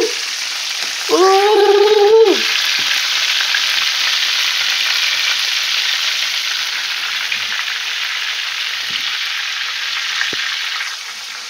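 Chicken drumsticks shallow-frying in hot oil in a pan, a steady sizzle, with a man's drawn-out whoop about a second in. The sizzle gets quieter near the end.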